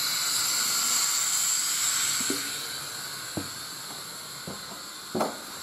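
Footsteps on the wooden floor of the Kiha 1 railcar, heard as four short knocks with the last the loudest, over a steady hiss that eases after about two seconds.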